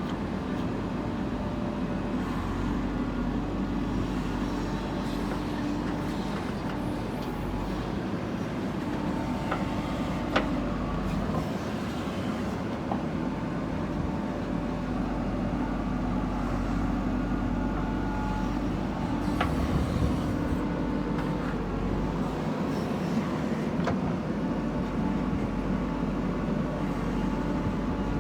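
JCB 3DX backhoe loader's diesel engine running steadily under working load, with a few sharp knocks.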